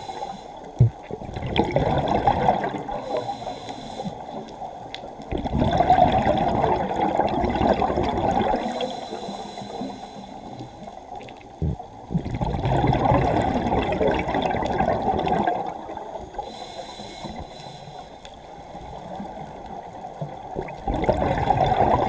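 Scuba regulator exhaust bubbles heard underwater through a camera housing: a muffled rushing and gurgling that comes in gushes every several seconds with each exhaled breath, with quieter stretches between.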